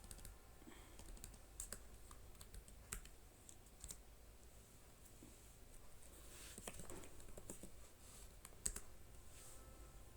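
Faint, irregular typing on a computer keyboard, with scattered key clicks and one sharper keystroke near the end.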